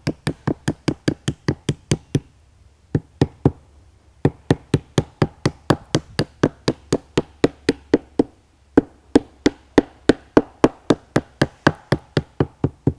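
Rawhide upholstery mallet tapping rapidly on fabric over a metal tack strip, about five blows a second, driving the strip's nails into the chair frame. The tapping stops briefly a few times and then picks up again.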